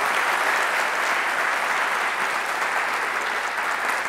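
Audience applauding steadily, clapping in an auditorium at the end of a talk.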